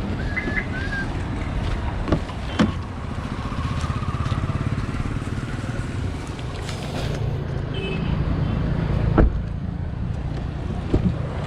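Road traffic: a steady rumble of passing vehicle engines and tyres, with a few sharp knocks and short faint high beeps.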